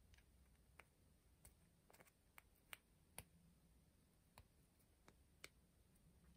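Faint, scattered small clicks of steel tweezers picking at a washer inside a Makita DF001G drill's plastic gearbox cover with its metal ring gear: about ten light ticks over six seconds against near silence.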